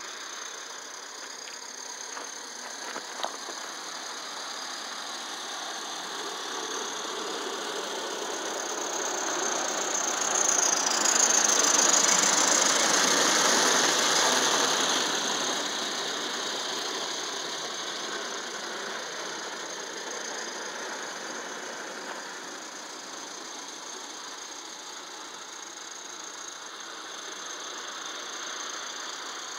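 Accucraft Emma live-steam garden-scale locomotive running past with its train, the steam exhaust and the running of the cars on the track growing louder to a peak about halfway through and then fading. A single sharp click comes a few seconds in.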